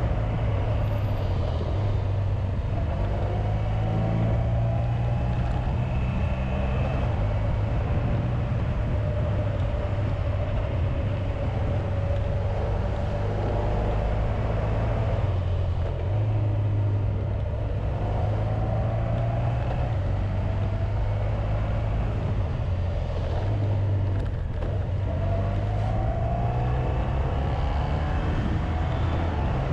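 Honda VFR1200X Crosstourer's V4 engine running on the move, a steady low drone with wind noise over the windshield-mounted camera. Its pitch rises a few times as the bike speeds up, most clearly near the end.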